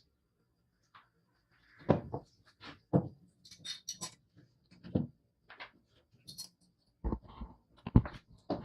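Irregular knocks and clicks of hard parts being handled, loudest about two, three and eight seconds in, with a few short scraping hisses in between.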